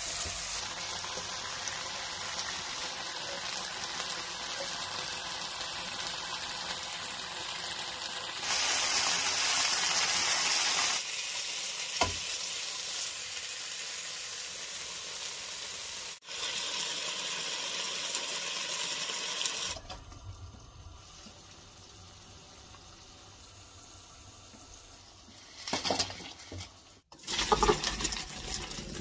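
Food sizzling as it fries: sliced mushrooms in oil in a pot, and later chicken breasts in a non-stick frying pan, with a louder stretch of hiss lasting a couple of seconds. Near the end, boiled pasta and its cooking water are poured into a colander in a steel sink, in two splashing pours.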